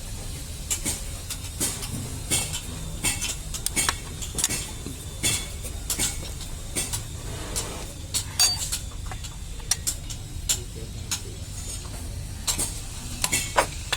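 Irregular metallic clicks and clinks of a hand tool working 10 mm bolts tight on the gear-selector housing of a Maruti Suzuki Alto 800 gearbox, over a steady low hum.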